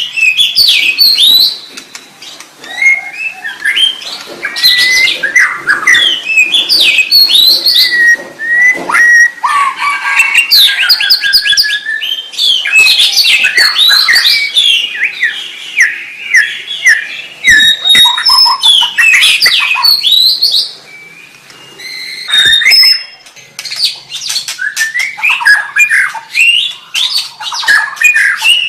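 White-rumped shama singing loudly: a fast, varied run of rich whistles, sweeping notes and rapid trills, broken by two short pauses, about two seconds in and about twenty-one seconds in.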